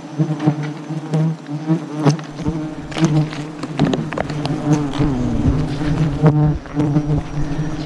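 Swarm of disturbed wild honey bees buzzing loudly close around the microphone, single bees flying past with a dipping pitch, over scattered knocks and scrapes from the comb cutting.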